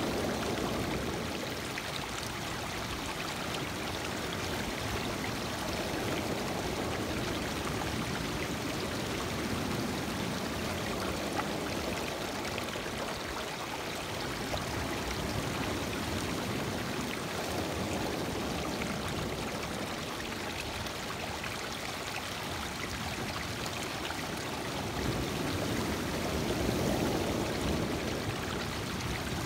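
Lake Michigan waves washing in over a stony shore, water rushing and trickling between the rocks. It rises and falls as each wave comes in, loudest near the end.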